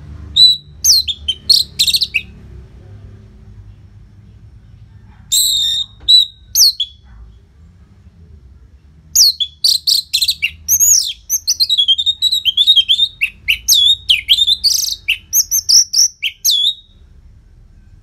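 Orange-headed thrush singing loudly: a few short phrases of quick sliding whistles in the first seconds, then a long, fast run of varied whistles and trills from about nine seconds in until near the end.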